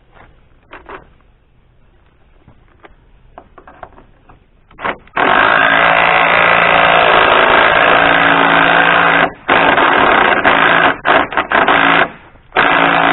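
A power tool drives a nut in one long steady run and then several short bursts. The bolt keeps turning with the nut, so the nut will not tighten. Light handling knocks come before it.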